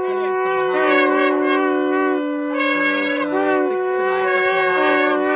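A wind instrument playing a slow melody of long held notes, each lasting about one to two seconds and stepping up and down in pitch.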